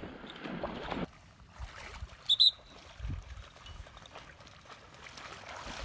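Two quick high-pitched whistle pips about two seconds in, over faint water and wind noise.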